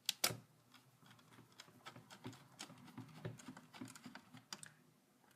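Small screwdriver driving the keyboard-securing screw into a laptop's plastic case, with two sharp clicks at the start and then a run of small, irregular clicks and scrapes as the screw is turned in.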